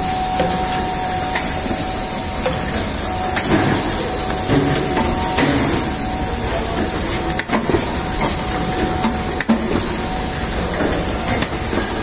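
Electro Mec six-clamp perfect binding machine running, a steady hiss and clatter of its mechanism with a faint steady whine that fades about halfway through. Two sharp clacks come about two seconds apart in the second half.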